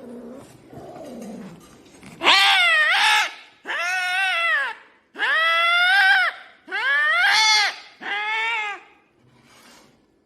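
Angry cat yowling: five loud, drawn-out wails of about a second each, every one rising and then falling in pitch, after a quieter low sound in the first couple of seconds.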